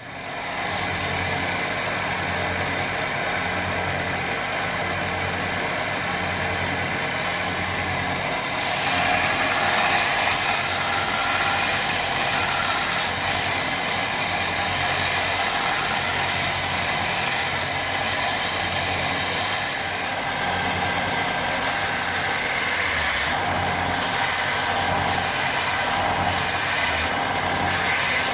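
Charnwood BD15 belt and disc sander switched on and running, its 250-watt motor driving the 1-inch sanding belt with a steady mechanical noise. From about nine seconds in it grows louder and hissier, with short dips in the hiss near the end.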